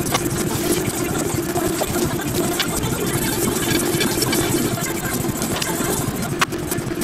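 Steady machine hum with a few faint clicks.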